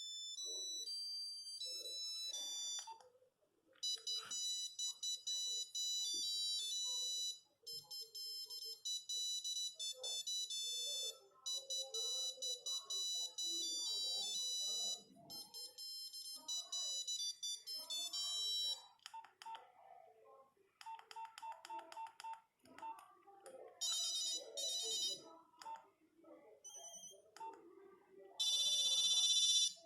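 Nokia 8210 mobile phone playing its monophonic ringtones one after another: short runs of high, beeping electronic notes, with a new melody every few seconds. Near the end the pattern becomes a rapid buzzing trill.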